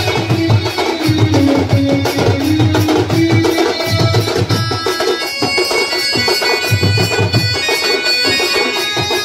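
Koraputia folk band music: a reedy wind instrument plays a wavering melody over drums beating in short bursts.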